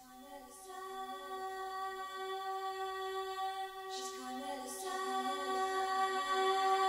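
Music: slow, layered singing voices holding sustained notes over a steady chord, the melody moving gently while the whole passage swells steadily louder.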